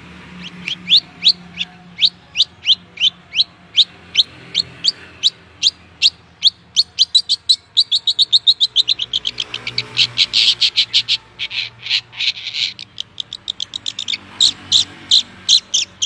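Long-tailed shrike (cendet) singing a long series of sharp, high notes, each falling quickly in pitch. They come about two a second at first and speed up past the middle into a fast, dense run, then turn to separate quick notes again near the end. This is its imitation of a kingfisher's (tengkek) call.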